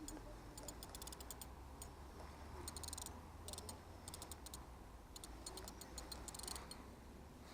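Fishing reel ticking in quick runs of sharp, faint clicks, with short pauses between runs, while a small hooked fish is being played on the feeder rod.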